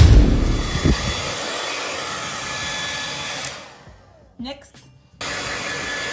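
The tail of a music track with a low boom dies away in the first second, under a steady blowing noise from a small electric motor appliance with a faint whine. The blowing fades out about three and a half seconds in, then cuts back in abruptly about five seconds in and runs on steadily.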